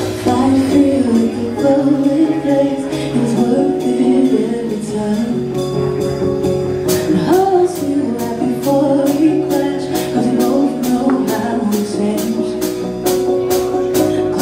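Live band playing a slow song with a lead singer over held instrumental notes; about halfway through, a steady percussion beat comes in, several strokes a second.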